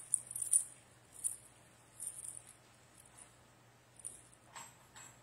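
Papers being handled and shuffled on a pulpit lectern: a series of short, crisp rustles, busiest in the first half-second and again near the end, over a steady low electrical hum.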